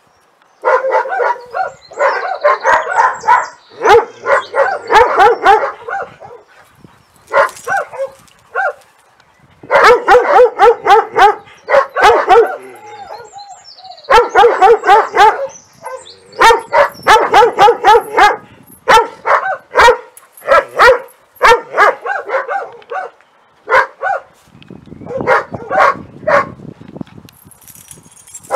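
Doberman pinscher guard dog barking at the fence, in bouts of rapid loud barks broken by short pauses.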